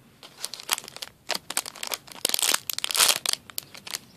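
Clear plastic packaging bag around a squishy crinkling as it is handled: an irregular run of sharp crackles, thickest and loudest a little past halfway.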